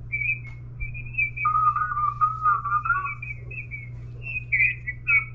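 Single-sideband voice signal on the 10 m band heard through a Yaesu FT-991A transceiver as the tuning dial is turned. The station is off-frequency, so the voice comes through as high, warbling whistles and chirps rather than words, over a steady low hum.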